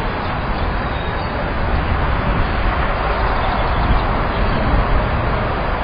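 A large crowd of children and adults murmuring together, a steady wash of indistinct voices over a low rumble.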